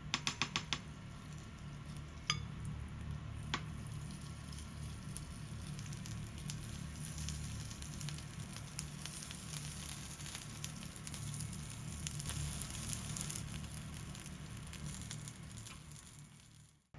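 Corn chijimi (Korean-style corn pancake) sizzling as it fries in a pan, a steady hiss full of fine crackles. A quick run of clicks comes right at the start, and two sharp ticks follow a few seconds in.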